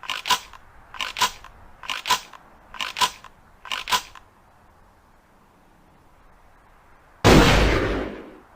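Ithaca Model 37 pump-action shotgun: five pairs of sharp metallic clacks about a second apart as the action is handled, then a pause and a single loud shot near the end that dies away over about a second.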